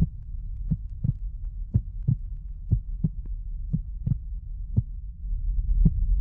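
Low droning rumble with soft, unevenly spaced thumps, about two a second, in dark cinematic sound design.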